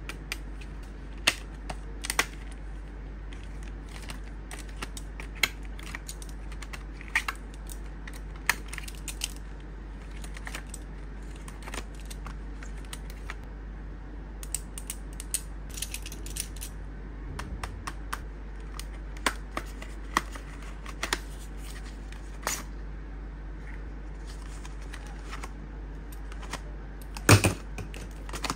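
Plastic pens being handled: irregular small clicks and clacks as the pen barrels knock together and against their clear plastic case, with a louder burst of clacks near the end.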